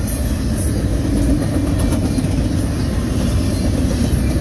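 CSX double-stack intermodal train's loaded well cars rolling steadily past, a loud, continuous rumble of steel wheels on the rails.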